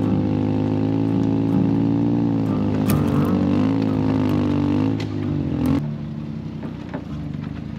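Small 660cc kei mini truck engine pulling steadily in low gear along a rocky dirt trail. The engine note rises a little twice and drops back to a quieter note about six seconds in. Occasional clicks and clatter of stones and the load come through.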